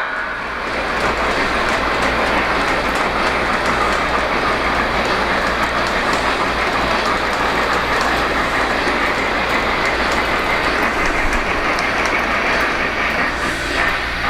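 O-gauge electric model train running along the layout's track: a steady rolling rumble from the wheels and motors, with faint clicks from the wheels over the rail joints.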